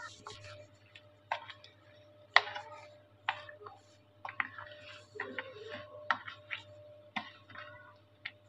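Irregular sharp clicks and knocks, about one a second, as pieces of raw mango pickle are tossed and mixed by hand in a plastic bowl.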